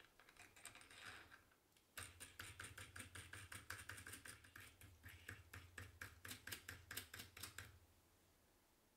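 Small steel parts on a wooden vise's threaded screw clicking lightly as a steel rod is worked by hand through the cross hole of a hex coupling nut: a short patter of small clicks, then a steady run of quick clicks, about five a second, lasting some five seconds.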